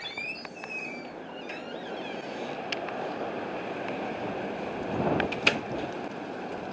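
Strong wind rushing steadily, building slightly about five seconds in, with a few sharp clicks.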